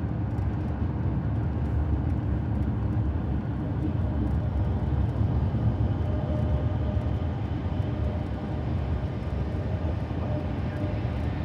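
Steady low road rumble inside a car's cabin at highway speed: tyre and engine noise heard through the closed windows.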